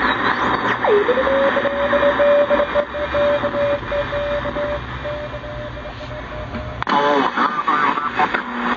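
Shortwave static and hiss from a 1970s Kentec BCL-1 communications receiver as its dial is tuned. About a second in, a whistle swoops down and settles into a steady tone that holds for several seconds: the beat note of a station's carrier. Near the end, a brief snatch of a station's audio comes through.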